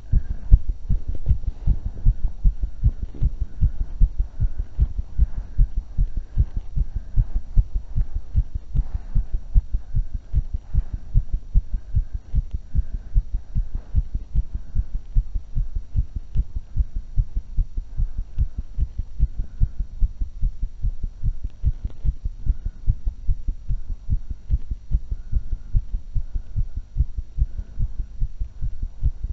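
A woman's heart beating very fast after running, picked up close to the chest: a rapid, steady run of low heart sounds.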